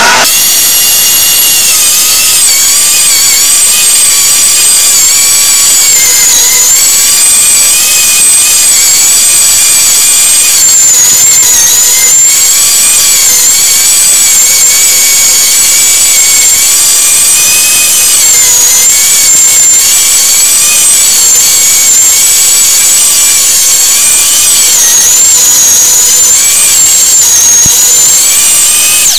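Electric meat grinder running under load as bacon fat is fed through it: a loud, steady high whine that dips slightly in pitch now and then. It cuts off abruptly at the end.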